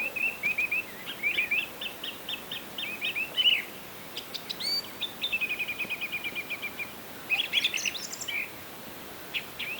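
Birds chirping and singing: a run of quick repeated chirps, and a rapid trill of about ten notes a second that starts about five seconds in and lasts under two seconds, over a faint steady hiss.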